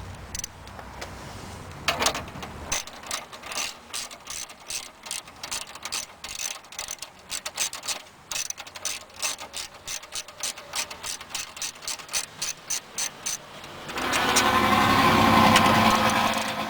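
Hand ratchet with a 10 mm socket clicking as it backs out the headlight's top bolts: a long, even run of clicks, about four or five a second. Near the end a louder, steady whirring sound takes over.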